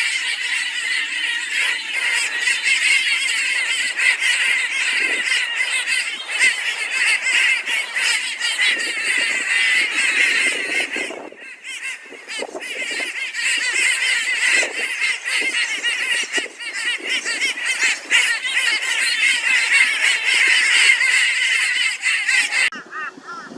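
A flock of Torresian crows cawing loudly and continuously together, a raucous mobbing chorus raised against a barn owl. The chorus dips briefly about halfway through, and its high part cuts off suddenly near the end.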